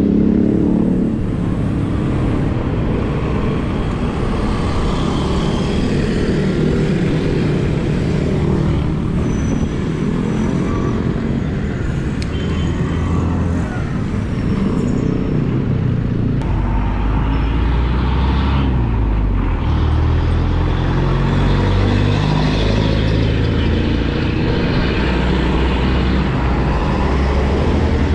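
Wind buffeting a rider's camera microphone on a moving bicycle, a steady low rumble with road hiss, mixed with motor traffic noise. The low rumble grows stronger past the middle.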